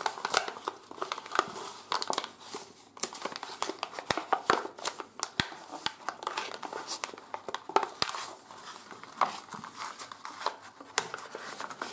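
Folded sheet of 80 g/m² office paper crinkling and crackling in the hands as an origami boat is slowly turned inside out. Irregular sharp crackles come throughout.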